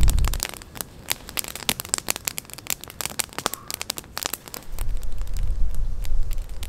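Wood campfire crackling, a dense, irregular run of sharp snaps and pops. Low wind rumble on the microphone drops away at the start and comes back about two-thirds of the way in.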